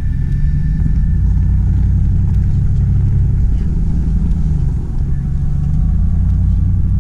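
Chevrolet Silverado Trail Boss pickup driving slowly through deep snow: a steady, loud low rumble of engine and drivetrain, dipping briefly about five seconds in.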